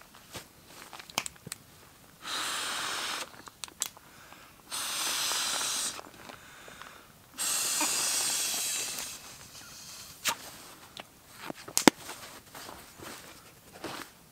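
Three long breaths blown by mouth into the valve of an inflatable camping pillow, each a rushing hiss of air, the last the longest. Small clicks and fabric rustles of handling come between the breaths.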